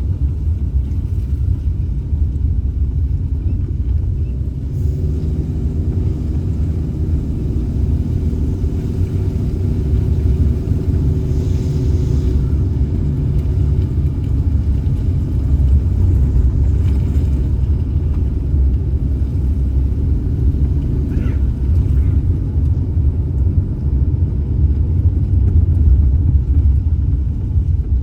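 Car driving along a road, a steady low rumble of engine and tyres with a faint engine tone above it and a couple of brief faint higher noises.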